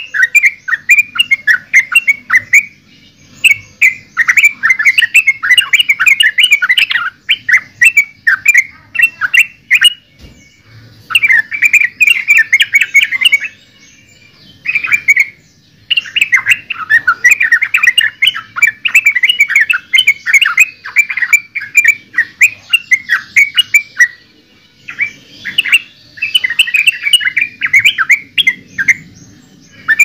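Yellow-vented bulbul singing: loud runs of rapid, chattering short notes in bouts of a few seconds, broken by brief pauses.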